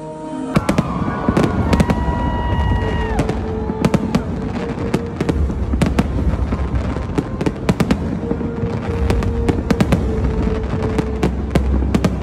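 Fireworks going off: many sharp bangs and crackles in quick succession over a low rumble.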